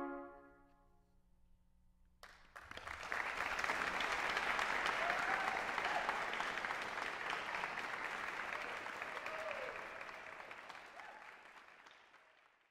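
A trumpet ensemble's final held chord dies away in the hall's reverberation. After about two seconds of quiet, the audience breaks into applause, which builds quickly, holds, and fades out toward the end.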